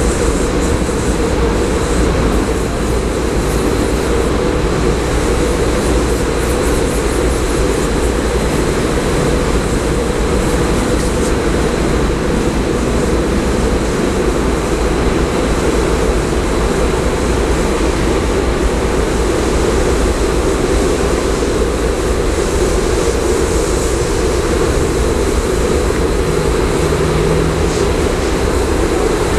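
Automatic car wash drying blowers running: a loud, steady rush of air with a low hum, as a car rolls through on the moving-floor conveyor.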